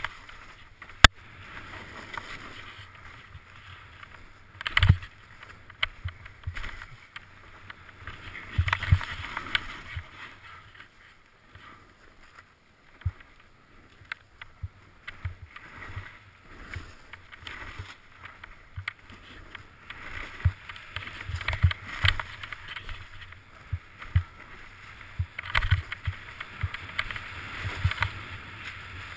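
Snow hissing and scraping in surges under a rider going fast through glades, with low thumps and a few sharp knocks as bumps jolt the action camera.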